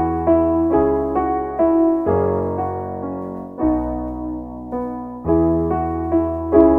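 Gentle instrumental keyboard music, a tune of notes struck about twice a second over slower-changing bass notes.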